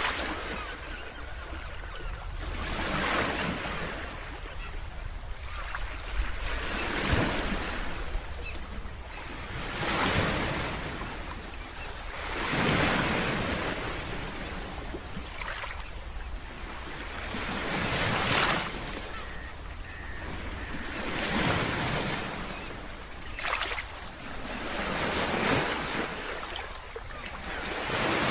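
Sea waves breaking and washing onto the shore, each one surging up and falling away every two to three seconds over a steady low rumble of surf.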